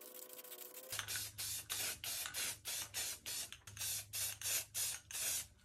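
Aerosol spray paint can hissing in short, quick bursts, about three a second, starting about a second in, as a base coat is sprayed on.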